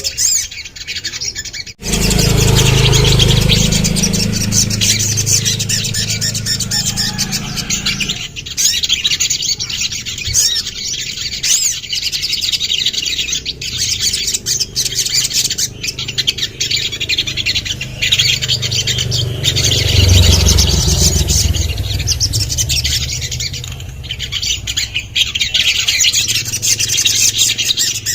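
Sogon (sogok ontong, a spiderhunter) singing a continuous run of rapid, high chirps and trills, with a low rumble underneath for several seconds near the start and again past the middle.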